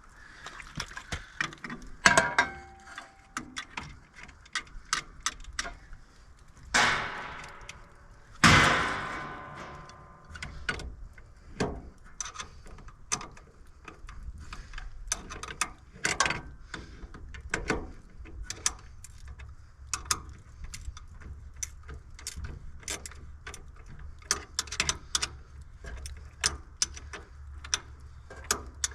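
Hand tools working on metal: a run of irregular clicks and knocks, with two loud ringing metal clangs about a quarter of the way in.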